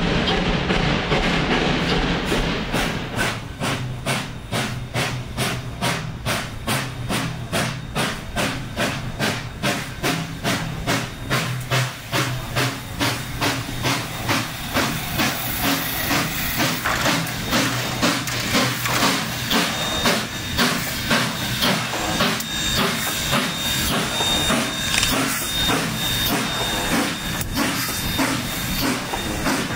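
Durango & Silverton K-28 2-8-2 steam locomotive No. 473 working, its exhaust chuffing steadily at about two beats a second over a constant hiss of steam.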